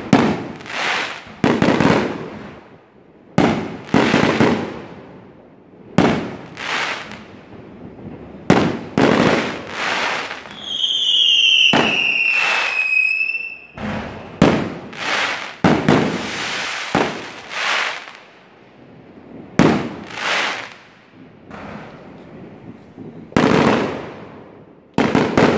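Aerial fireworks shells bursting in a string of sharp bangs every second or two, each followed by a fading crackle. About halfway through a long whistle sounds for about three seconds, slowly falling in pitch.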